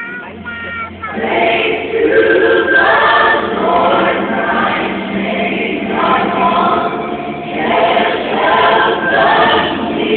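Choral music: many voices singing together, swelling in about a second in over a low held bass note.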